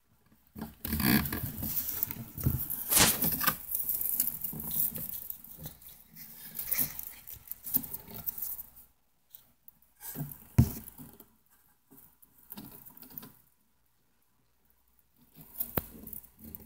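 Close, dry rustling and crackling in irregular bursts for about the first half, then quieter with a few sharp clicks and a last short rustle near the end.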